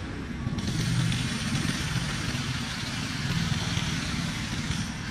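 Steady low engine-like rumble, like a motor idling, with a hiss over it that drops out for about half a second near the start and again near the end.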